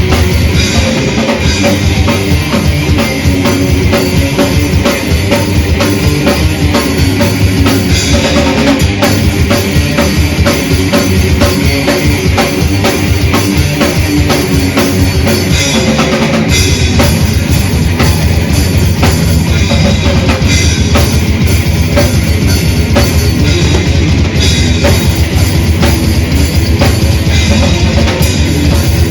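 Death/thrash metal band playing live: distorted electric guitars, bass and a drum kit with fast, dense drumming. The low end thickens about halfway through.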